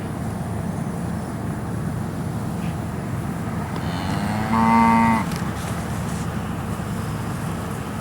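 A beef calf mooing once, a single call of about a second about halfway through, over steady low background noise.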